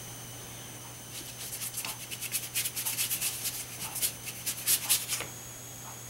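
Paintbrush scrubbing back and forth in quick, scratchy strokes, starting about a second in and stopping near the end.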